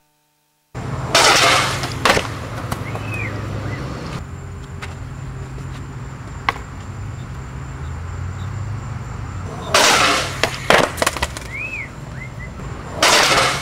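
Skateboard wheels rolling on concrete, with loud bursts of rolling noise about a second in, near ten seconds and near the end, and sharp clacks of the board hitting the ground just after the second burst.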